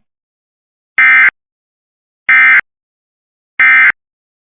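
Emergency Alert System end-of-message code: three short bursts of SAME digital data tones, each about a third of a second long and about 1.3 seconds apart, signalling that the alert has ended.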